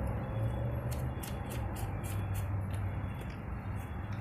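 Faint, irregular small clicks and taps as the car battery's positive terminal clamp and cable are handled, over a steady low hum.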